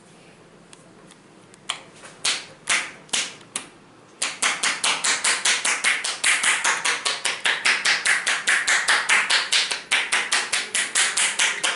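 Hands striking a man's back in percussive massage strokes (tapotement). A few single slaps start about two seconds in, then from about four seconds in comes a fast, even run of about six slaps a second.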